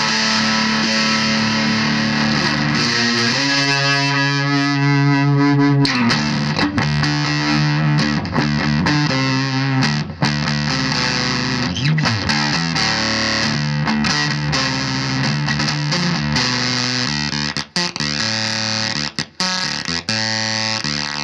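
Electric guitar played through a Volition Amps Vintage Fuzz pedal, fuzz-distorted. Held chords ring for the first few seconds, then busier riffing follows, broken by short choppy stops near the end.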